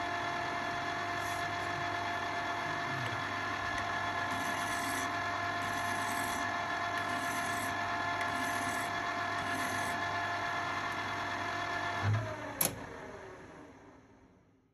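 Metal lathe running steadily with its motor hum while a parting tool cuts through a metal bar to shorten it. Near the end there is a sharp click, and the lathe then runs down and stops.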